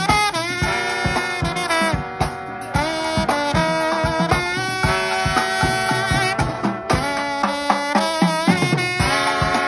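A small brass band playing an upbeat tune: trombones and another horn hold and move between notes together over a steady drum-kit beat.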